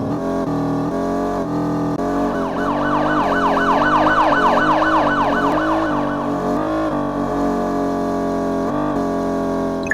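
Background music with a stepping melody; from about two and a half seconds in until about six seconds, a fast repeating siren-like sweep, about four falling sweeps a second, sounds over it.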